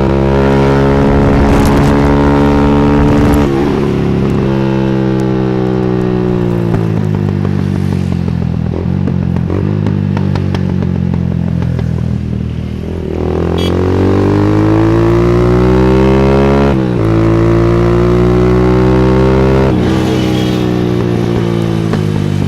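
Wego scooter's carbureted single-cylinder engine through an Akrapovic slip-on exhaust, the revs falling over several seconds with a run of crackles from the exhaust, typical of its rich mixture. The revs stay low for a while, then rise sharply about halfway through and are held with brief dips.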